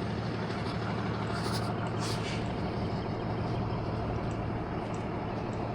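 Vehicle engine running steadily, a constant low hum under an even rumble.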